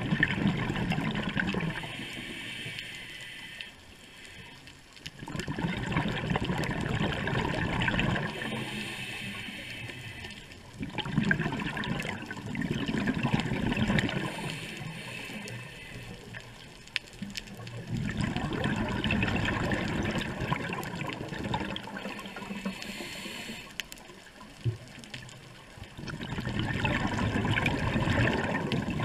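A scuba diver breathing through a regulator, heard underwater. Loud rushes of exhaled bubbles come about every six seconds and alternate with the quieter hiss of each inhalation through the demand valve.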